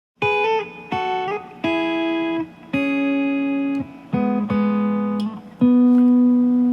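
A guitar plays the song's intro: a slow series of about seven chords. Each chord starts sharply and is left to ring. The playing starts a moment in, out of silence.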